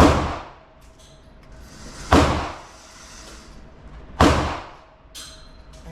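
Three gunshots about two seconds apart, each a sharp crack with a short echo from the enclosed range.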